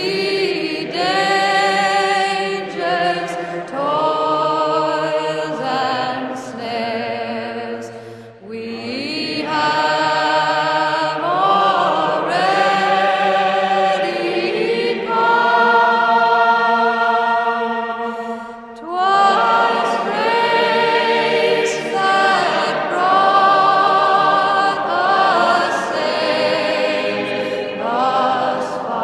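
Background music: a choir singing slow, sustained chords, with two short breaks between phrases.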